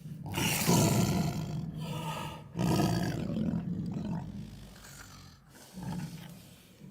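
Tiger roaring: two long, loud roars back to back in the first four seconds, then a shorter, quieter one near the end.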